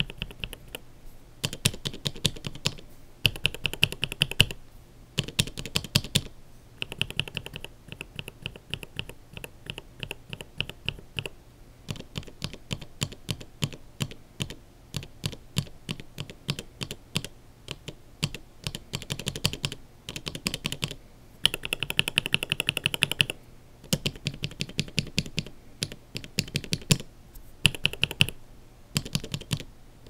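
Linear mechanical keyboard switches with Kailh burgundy stems, in YOK and vintage Cherry black housings and lubed with Tribosys 3204, pressed and released on a switch tester. The presses come in quick bursts of rapid strokes, each a sharp clack, with short pauses between bursts.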